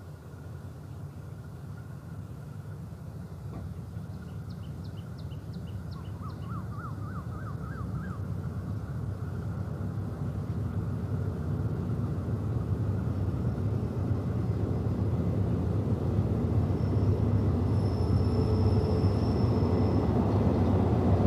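A State Railway of Thailand GE diesel-electric locomotive, No. 4547, hauling a passenger train as it approaches. Its low engine rumble grows steadily louder, and a thin high squeal sets in near the end as the train comes into the station.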